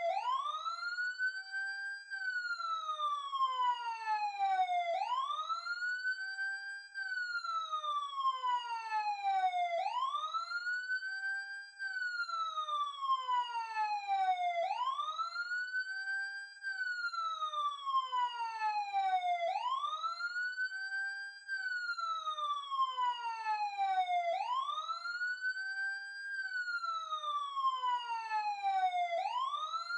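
Emergency siren wailing in a steady repeating cycle: each cycle sweeps quickly up in pitch, holds briefly at the top, then falls slowly, and repeats about every five seconds.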